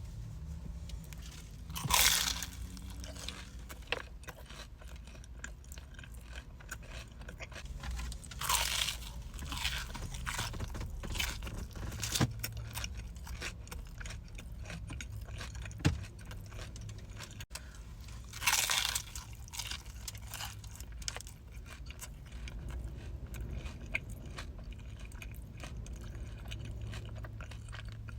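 Close-miked biting and chewing of a toasted chalupa's crisp shell, with crunchy chews throughout and a few louder crunches about 2 seconds in, near 9 seconds and near 19 seconds.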